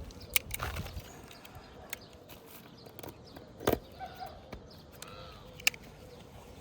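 Scattered knocks and clicks from handling a freshly cut asphalt shingle and tools on a roof, the sharpest about three and a half seconds in.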